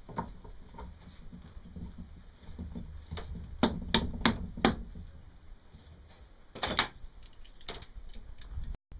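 Sharp metallic clicks and clinks from hand work on a propeller shaft and its coupling flange, with locking pliers being handled: a quick run of about five clicks around four seconds in, then a few more later.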